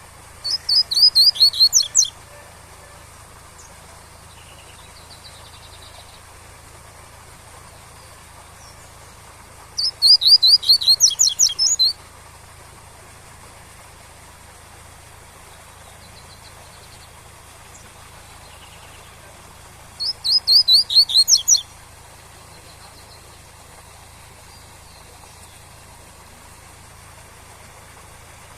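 Double-collared seedeater (coleiro) singing its 'tui-tui' song: three phrases, each a quick run of sharp, repeated high notes lasting about two seconds, spaced about ten seconds apart. A steady waterfall hiss runs beneath.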